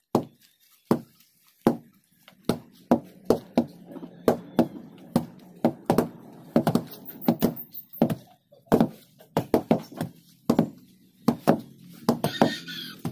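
Two heavy wooden hand tampers pounding loose soil, compacting the earth fill. Dull thuds land in an uneven, overlapping rhythm of about two a second.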